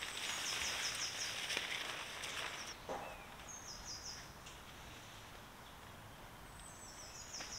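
Tarp rustling as it is pulled and draped over a shelter frame, loudest in the first couple of seconds. A small songbird sings several short runs of quick, very high notes over it.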